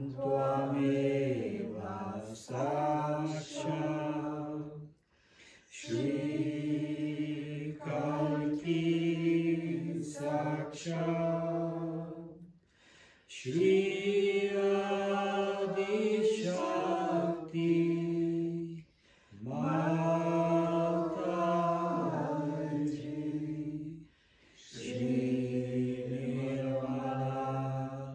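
Sanskrit mantra chanted in long held notes, in phrases of several seconds each, with brief pauses between them.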